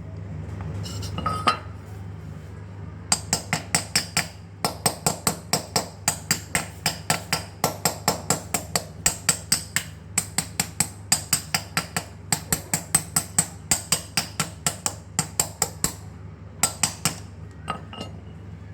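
Rapid light hammer taps on metal, about four a second, in runs with brief pauses, with a few single taps near the start and end.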